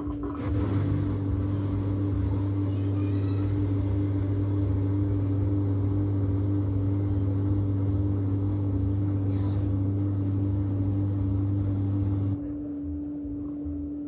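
LG washing machine running: a steady motor hum with a low drone that starts about half a second in and cuts off about 12 seconds in.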